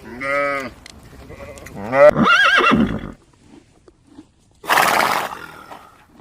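A series of separate animal calls: a short pitched call at the start, a louder wavering call about two seconds in, and a short harsh, breathy blast about five seconds in.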